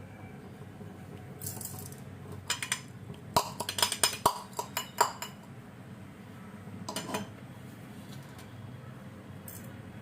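Metal kitchen utensils clinking and knocking against each other: a quick cluster of sharp clinks a few seconds in, then a shorter clatter later.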